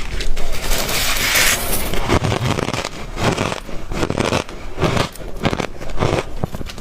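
Hard crushed ice from a deep freezer being crunched between the teeth close to the microphone. A dense scraping crunch in the first couple of seconds gives way to a run of separate sharp crunches as it is chewed.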